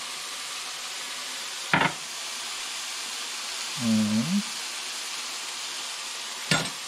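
Marinated beef frying in a pan, a steady sizzle. Two sharp knocks cut through it, one about two seconds in and one near the end, and a short hum of a voice comes about four seconds in.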